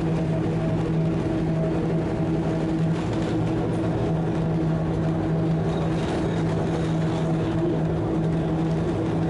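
A vehicle running steadily: a constant low hum with overtones over an even rushing noise.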